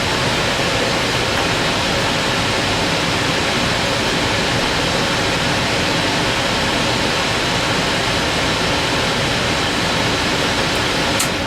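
Electric furnace running with its blower moving air in a steady, even rush. There is a short click near the end.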